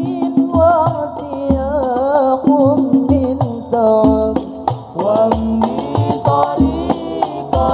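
Al-Banjari hadrah ensemble: a group of young male voices singing a sholawat melody together in long, ornamented, wavering lines. Under them runs a rhythm of terbang frame drums, with deep bass thumps and sharp slaps.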